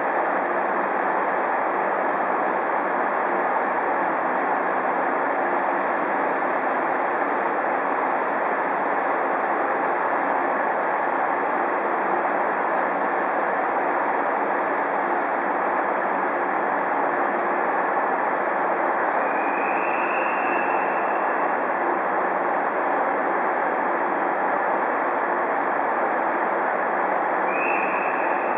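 Steady rushing hiss of a standing DR Class 23.10 steam locomotive, echoing under a station roof. About twenty seconds in, a high single-pitched whistle blows for about a second and a half as a departure signal, and a second whistle starts just before the end.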